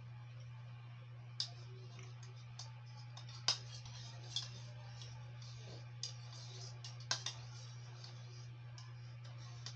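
Metal spoon clinking and scraping against a plastic cereal bowl while eating: about seven sharp, scattered clicks, two close together near the end, over a steady low hum.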